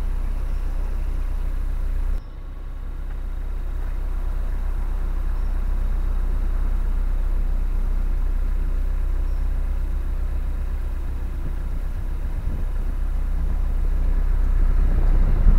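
Narrowboat diesel engine running steadily under way, a deep low rumble. It drops suddenly about two seconds in, then builds back up.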